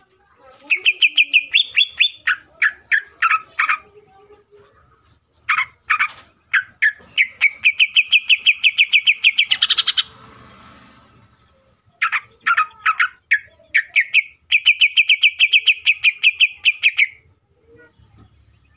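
Male cucak ijo (green leafbird) singing in long, fast runs of sharp repeated chirps, about eight to ten a second, in three volleys with short pauses between them. A brief rustle comes just after the middle.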